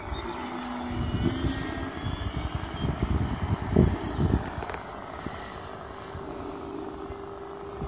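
Engine of a Stinger-90 radio-controlled model airplane, a thin steady buzz that shifts slightly in pitch as the plane flies around the sky, with uneven low rumbles and a couple of heavier thumps about four seconds in.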